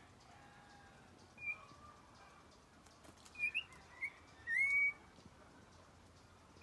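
A toche, an oriole, calling with short clear whistled notes. There is a single note about a second and a half in, then a quick run of notes a couple of seconds later, ending in a longer upslurred whistle.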